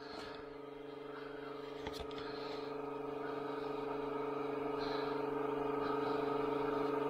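A steady, even hum that grows slowly louder, with a single light click about two seconds in.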